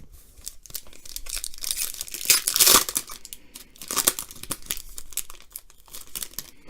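A Panini Prizm Fast Break trading-card pack wrapper being torn open and crinkled: a run of crackles, loudest about two and a half seconds in, with another burst about four seconds in.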